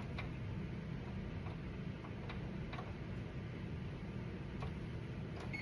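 Faint, irregularly spaced clicks as a kitchen timer is set, over a steady low hum.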